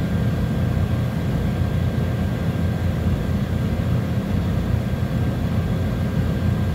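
Steady low machine drone with a faint high steady whine over it, unchanging throughout.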